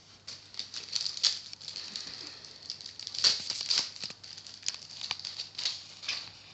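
Irregular crinkling and rustling of a card pack's wrapper and trading cards being handled, with many short crackles and clicks.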